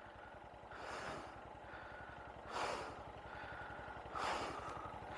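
An engine idling steadily with an even low pulse. Three heavy breaths close to the microphone come about one, two and a half, and four seconds in.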